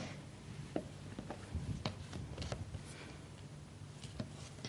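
Faint taps and knocks of a plastic rolling pin rolling out a thick sheet of modelling paste on a plastic cutting mat, over a steady low hum.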